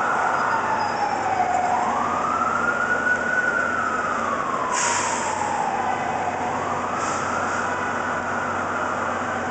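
Federal Q mechanical siren wailing over heavy city traffic noise. It winds up quickly, then coasts down slowly over about three seconds, then winds up again. A short hiss comes about five seconds in.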